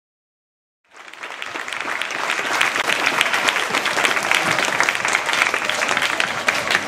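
Audience applauding: a crowd's clapping that starts suddenly about a second in and quickly builds to a steady, loud patter.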